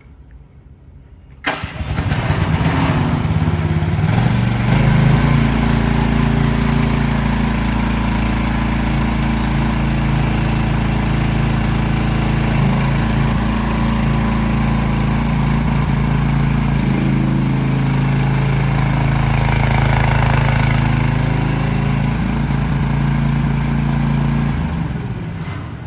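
A Vicsec VC15 mini-excavator's 15-horsepower, 420 cc engine starting about a second and a half in, catching unevenly at first, then running steadily. The level falls away near the end.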